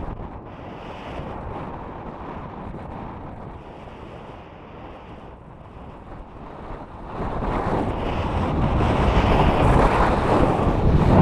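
Wind buffeting the microphone, rising into a strong gust about seven seconds in.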